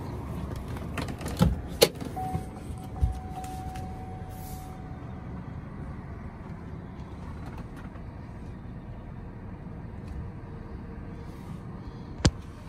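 Pickup truck running at low speed, heard from inside the cab as it rolls slowly forward: a steady low rumble, with a few knocks in the first two seconds, a thin steady whine for about three seconds after that, and one sharp click near the end.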